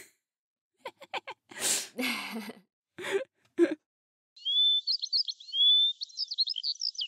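Short breathy gasps and bursts of laughter. About four seconds in, a thin, high bird song starts: quick chirps and rising whistles that run to the end.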